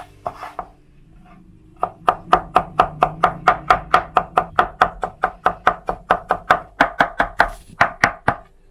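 Chef's knife chopping gherkin pickles on a plastic cutting board: a couple of cuts, a short pause, then rapid, even chopping at about five strokes a second from about two seconds in.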